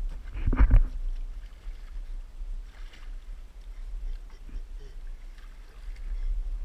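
Ice-cold water sloshing around a man's body as he wades down a ladder into a hole cut in lake ice, over a low rumble of wind and handling on the pole-mounted camera's microphone. A short loud burst comes about half a second in.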